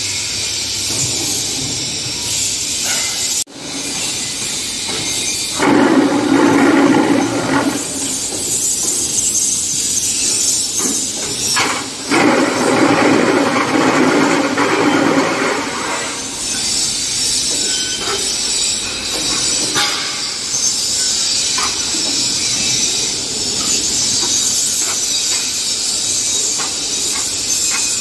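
QTJ4-25D automatic concrete block making machine and its feed conveyor running: a steady loud mechanical din with hiss, swelling twice into louder stretches of a few seconds each.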